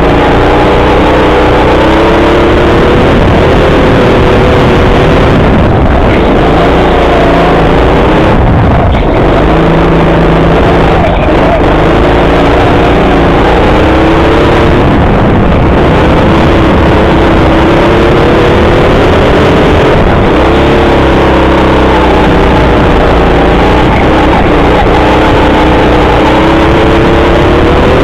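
Racing go-kart's motor heard loud from on board the kart, its pitch climbing along the straights and dipping into each corner every few seconds, over a heavy rumble.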